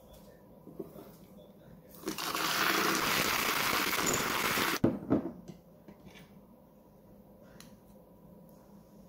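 Handheld battery milk frother whirring in a mug of coffee for nearly three seconds, starting about two seconds in and cutting off suddenly. Two sharp knocks follow right after it stops.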